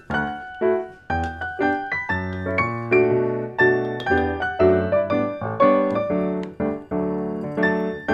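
Background piano music: a melody of struck notes over chords, a new note every fraction of a second.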